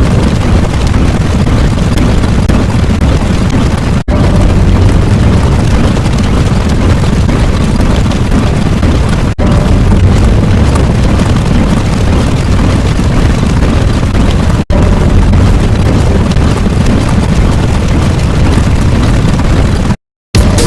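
Loud, continuous rumbling sound effect, heaviest in the low end, looped so that it breaks off for an instant about every five seconds; it cuts out to a brief silence just before the end.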